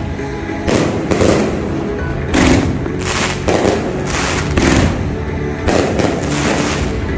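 Diamond Fireworks 228-shot cake firing: sharp bangs of its shots bursting, roughly one a second, over steady background music.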